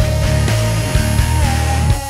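Instrumental alternative rock passage with no singing: a heavy low bass line under a steady beat, with a held high lead note that steps up in pitch about one and a half seconds in.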